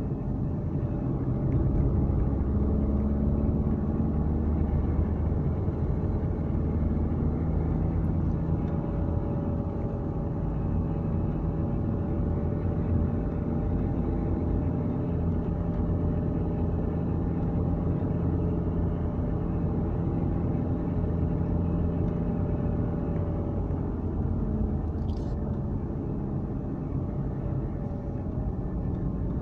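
Interior drive noise of a Dacia Duster 4x4 cruising: a steady low engine hum mixed with tyre and road rumble, the engine note drifting slightly in pitch with no sharp changes.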